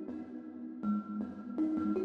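Background electronic music, held notes with new ones struck at a steady pace.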